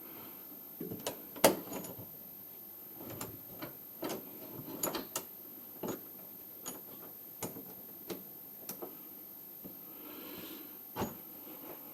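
Scattered knocks, clicks and light rattles of a plastic car center console being handled and test-fitted over the gear shifter and e-brake, the loudest knock about a second and a half in.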